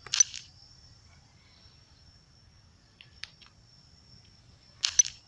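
Two short taps of a finger on a smartphone touchscreen, one just after the start and one near the end, with a couple of faint ticks between, over a faint steady high-pitched whine.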